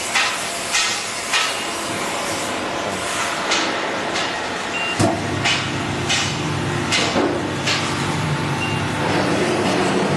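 Circular saw blade grinding machine sharpening the blade tooth by tooth: a short hissing grinding stroke about every 0.6 s, spacing out later, with a steady motor hum coming in about halfway through.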